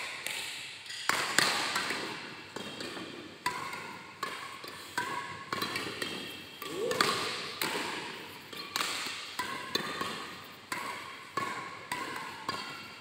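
A fast badminton doubles rally: sharp racket hits on the shuttlecock and players' footfalls, about two a second, each echoing in an indoor sports hall.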